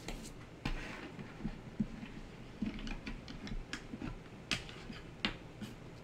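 Paper and card stock handled on a tabletop: rustling with scattered light clicks and taps, the sharpest a little past four and five seconds in.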